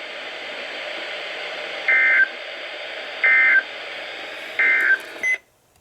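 Three short screeching bursts of SAME digital data, the end-of-message code that closes an Emergency Alert System weather radio broadcast, evenly spaced over a steady radio hiss. Near the end a brief tone sounds and the hiss cuts off abruptly as the transmission ends.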